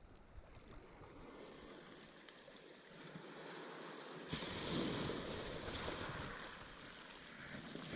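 Small waves breaking and washing over a shingle beach, with a louder surge of surf about four seconds in that slowly fades.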